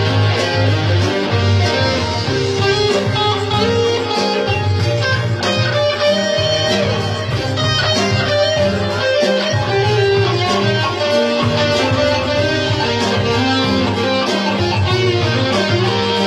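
Live band music led by a Stratocaster-style electric guitar, with a bass line underneath.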